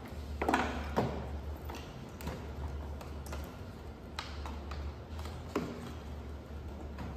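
Scattered taps, knocks and clatter of model-aircraft parts being handled and set down on a workbench, loudest in the first second, over a steady low hum.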